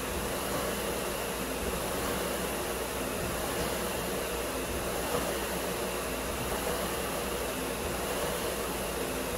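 Steady whoosh of a spinning fan.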